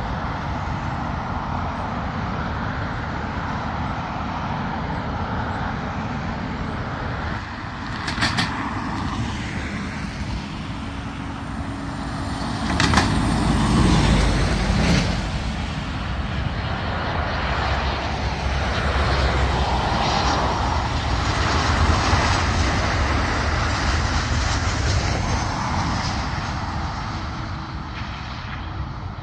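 Jet airliner engines, a continuous roar that swells about halfway through and then stays loud before easing off near the end.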